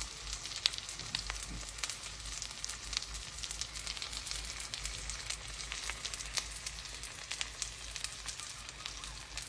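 Hot oil sizzling and crackling under a whole spice-coated pomfret shallow-frying in a pan: a steady hiss with frequent small pops.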